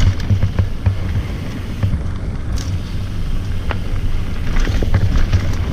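Wind buffeting the microphone over the rumble of a mountain bike rolling along a dirt trail, with scattered clicks and rattles from the bike on the rough ground, more of them in the second half.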